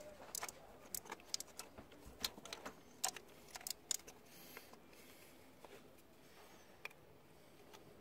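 Faint, scattered light clicks and small rattles of hands working among plastic connectors and wiring in a car's engine bay, plugging in an electrical connector on a replacement air-conditioning compressor. The clicks are denser in the first half and grow sparse near the end.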